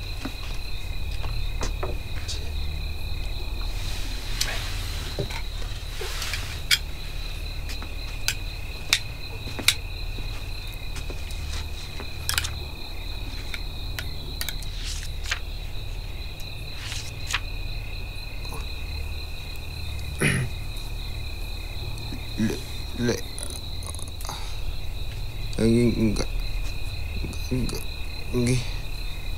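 Crickets chirping in a steady high-pitched trill over a low rumble, with scattered sharp clicks. A few short, low voice-like sounds come in the last ten seconds.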